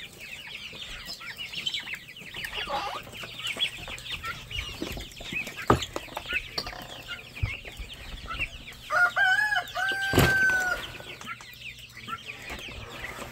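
Chickens clucking, with many chicks peeping in quick high chirps throughout. About nine seconds in, one bird gives a louder, drawn-out call.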